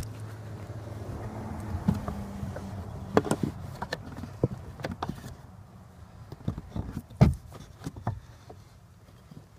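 Irregular knocks and clicks as a piece of wood is fitted between a car's clutch pedal and the footwell sidewall, over a low steady hum that fades after about three seconds.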